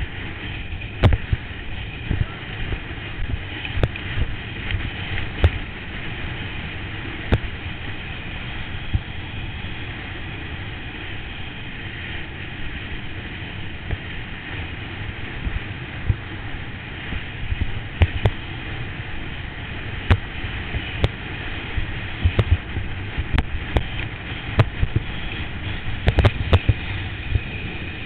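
Steady rushing of wind and water on a helmet-mounted action camera as an inner tube is towed at speed across a lake, broken by repeated sharp thumps and slaps as the tube bounces over the boat's wake, coming thickest near the end.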